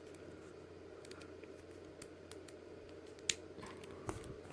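Plastic action figure being handled, with a few small clicks of its parts; one sharper click a little over three seconds in. A steady low hum runs under it.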